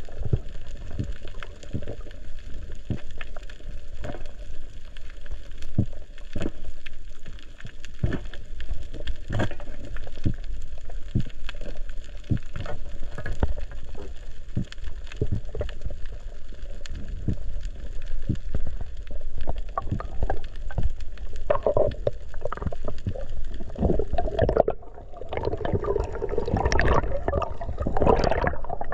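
Underwater sound on a coral reef: a steady crackle of sharp clicks over a low rumble of water moving past the camera. In the last few seconds, louder bubbling and gurgling.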